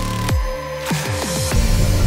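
Background electronic dance music with several falling bass swoops. The deep bass drops out briefly under a held note, then the full beat comes back near the end.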